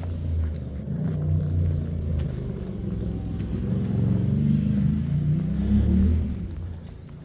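A motor vehicle driving past, its engine and tyre rumble building to its loudest about six seconds in, then fading away.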